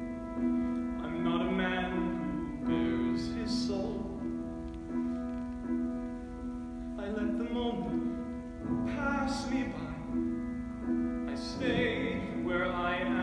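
A man singing a slow musical-theatre song in phrases a few seconds apart, over sustained piano chords.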